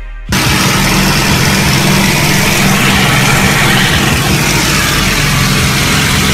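Small propeller aircraft's engine running at a steady drone with rushing wind noise, heard from inside the cockpit. It cuts in abruptly just after the start.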